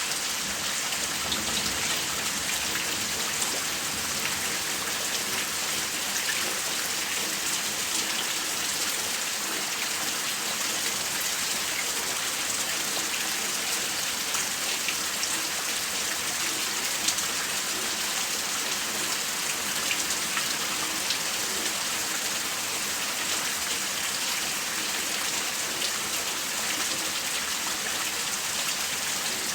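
Rain falling steadily: an even hiss of drops with fine scattered ticks of individual drops, no thunder yet.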